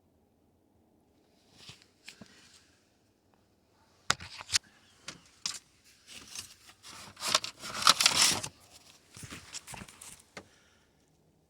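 Papers rustling and crinkling as they are handled, in spurts with a few sharp clicks, loudest about two-thirds of the way in.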